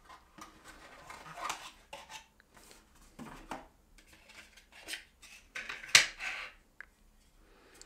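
Plastic film packaging around a small USB-C hub rustling and crinkling as it is handled, in irregular short bursts, with a sharp click about six seconds in.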